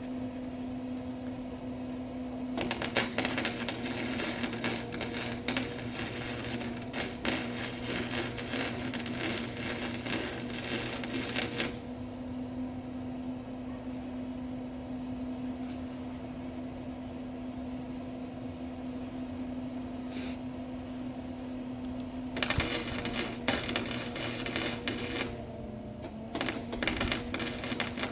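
Electric arc welding on steel cattle panels: three runs of dense crackling, a long one of about nine seconds and two shorter ones near the end. A steady low hum runs underneath.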